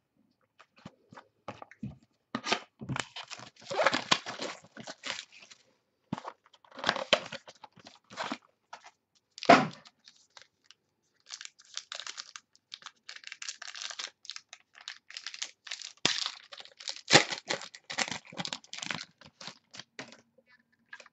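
Wrapping torn and crinkled by hand as a sealed box of football trading cards is opened, in irregular crackling clusters with sharp clicks and knocks as the box and cards are handled.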